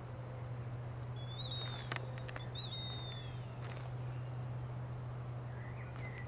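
Two high, whistled bird-like calls about a second apart, each rising briefly and then sliding down, with a lower call near the end. A few sharp clicks fall between them, and a steady low hum runs underneath.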